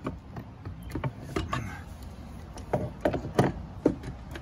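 Metal wrench clicking and clinking against a Volvo Penta outdrive trim-cylinder fitting as it is turned loose by hand, in about eight irregular clicks and knocks.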